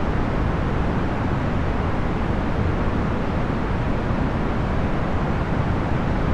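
Procedurally generated box fan noise: an even, steady rush, heaviest in the low end and fading in the highs, with no tone, rhythm or change.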